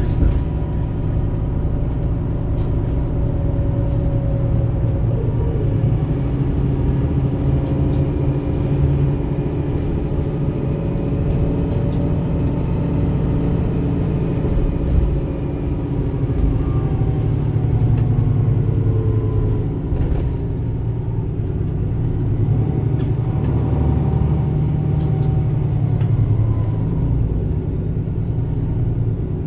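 Diesel engine of a 360 hp MAN Lion's City A21 articulated bus with a ZF EcoLife six-speed automatic, running under way with a trailer in tow: a steady heavy rumble whose engine note rises and falls several times as the bus accelerates and eases off.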